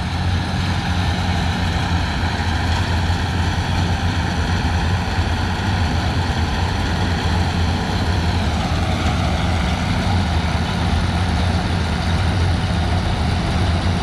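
Tractor engine running steadily at a constant speed, a low even drone.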